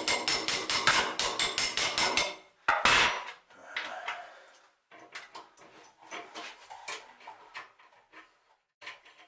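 Rapid hammering, about five blows a second, stopping after about two seconds, followed by a single heavier knock; then faint scattered clicks and handling of small parts.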